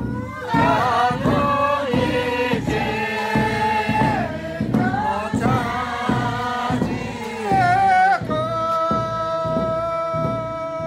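A group of voices singing a folk song together, the melody rising and falling, then holding one long steady note for the last few seconds, over a regular beat of low thuds.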